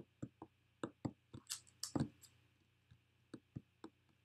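A series of small, irregular clicks and taps, with two short hissy bursts a little past halfway, in a quiet room.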